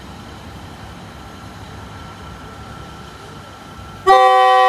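Steady low rumble of an SRT diesel railcar at the station, then its air horn sounds a loud chord of several tones about four seconds in.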